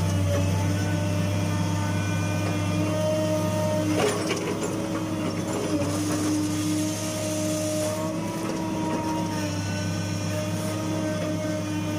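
Hitachi UH045-7 excavator running steadily under work, a low engine hum with a whining tone that swells and fades, and a sharp knock about four seconds in, with a fainter one near eight seconds.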